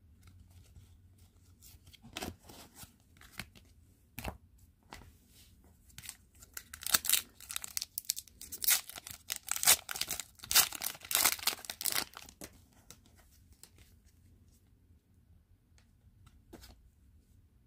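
Foil trading-card pack wrapper being torn open and crinkled. A few scattered handling rustles come first, then a dense run of tearing and crackling from about six to twelve seconds in, fading to faint clicks of cards being handled.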